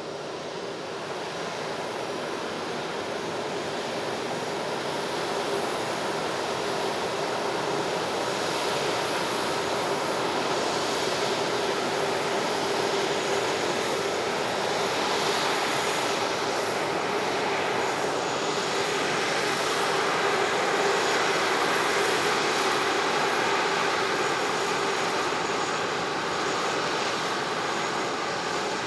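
Boeing 737-500's CFM56-3 turbofan engines running at taxi power as the airliner rolls past: a steady jet roar with a low hum and a thin high whistle. It grows gradually louder, peaks about two-thirds of the way through, then eases slightly as the jet turns away.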